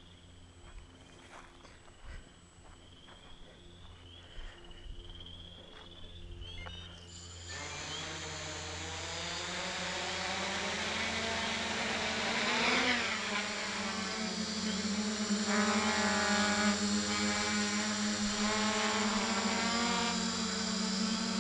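Hexacopter's six electric motors and propellers spin up suddenly about seven seconds in, then settle into a steady buzzing whine. The whine grows louder as the craft lifts off into a low hover, and its pitch shifts briefly partway through.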